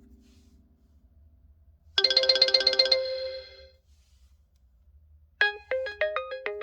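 Realme 11 Pro+ phone ringtones: one ringtone fades out, a short trilling ring of about a second sounds about two seconds in, and near the end a new ringtone begins, a quick melody of short notes.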